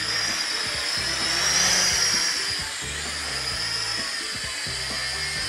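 Whine of the XinXun X-53F mini quadcopter's motors in flight, rising in pitch a little over a second in and dropping back about a second later. Background music plays underneath.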